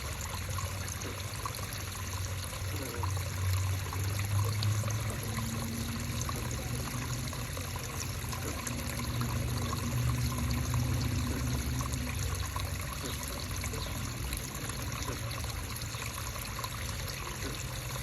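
Creek water running and trickling, a steady rushing hiss, with a low rumble that swells twice.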